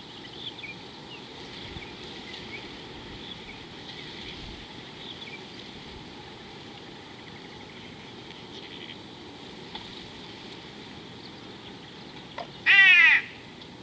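Small birds chirp in the background against a steady outdoor hiss. Near the end comes a single loud, short animal call of about half a second that falls in pitch.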